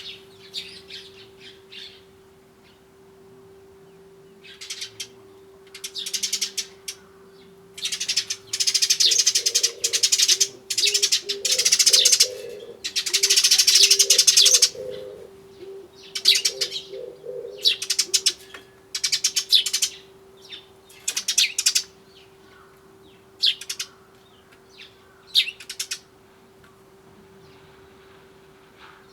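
Eurasian tree sparrows chirping in repeated bursts, thickest and loudest in the middle. Under them, from about a third of the way in, an Oriental turtle dove coos its song in a low repeated phrase for several seconds.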